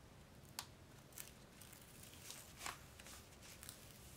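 Faint crinkles and a few short clicks as the paper cover sheet is picked loose and peeled back from the corner of a diamond painting canvas's adhesive surface. The loudest click comes a little past halfway.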